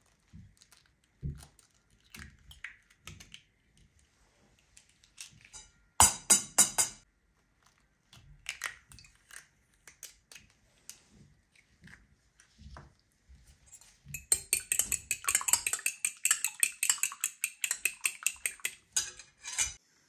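Raw eggs being cracked into a china bowl: light taps and shell crackling, with a loud crunching cluster about six seconds in. From about fourteen seconds a fast run of clinking strokes in the bowl follows, the eggs being beaten, and it stops just before the end.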